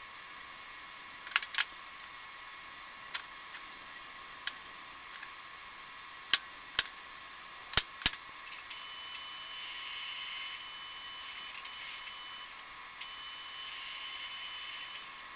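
Steel plates and a metal rule being set down and knocked on a steel workbench: a series of sharp metallic clanks, the loudest four coming between about six and eight seconds in. After that, softer rubbing and scraping as a steel plate is lifted and handled, with a thin high ring.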